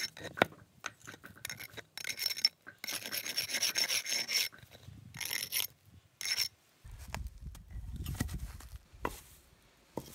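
Small hand pick prying pavers up out of packed dirt: a few sharp knocks, then gritty scraping of the pick and paver against soil and grit in several strokes. A low rumble with a couple of knocks takes over in the last few seconds.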